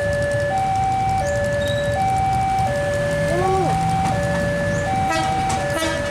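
Railway level-crossing warning alarm sounding its two-tone ding-dong: a lower and a higher tone alternate evenly, each held about two-thirds of a second, over a low rumble.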